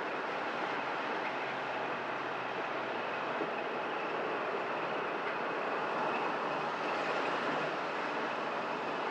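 Steady road and engine noise heard inside a moving vehicle's cabin, tyres running on asphalt at a constant speed.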